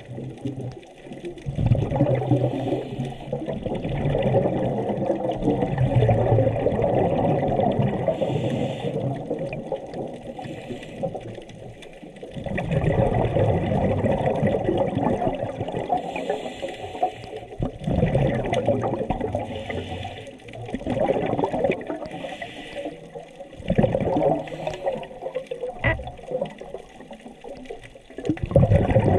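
Scuba regulator exhaust bubbles rushing and gurgling underwater as the diver breathes out, in several long surges a few seconds each with quieter gaps between for the inhale.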